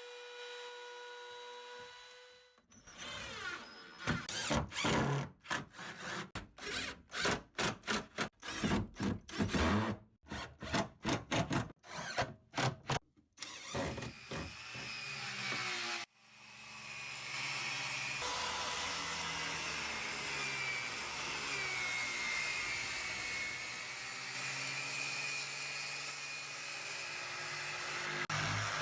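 A power tool switched on and off in many short bursts for about the first half, then running steadily with a wavering pitch for the rest.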